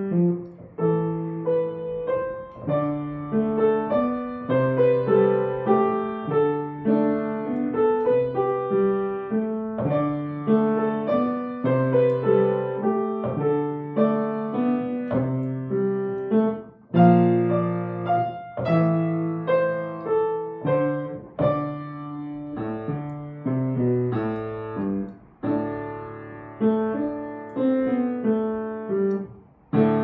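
Kawai grand piano played solo: a piece with a repeating pattern of low notes under higher notes, pausing briefly between phrases a few times.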